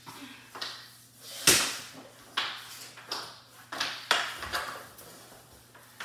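Irregular sharp knocks and taps of mini hockey sticks striking a hardwood floor during play, about a dozen, the loudest about one and a half seconds in.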